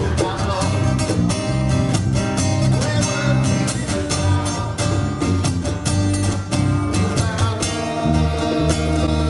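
A small live band playing a cover song: guitar over sustained bass notes and a steady drum beat.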